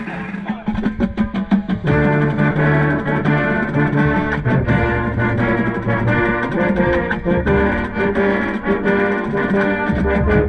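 A marching band's brass and drums playing, with a euphonium right at the microphone. Drum strokes open the passage. The full band comes in about two seconds in with sustained brass chords and strong low notes over a steady drum beat.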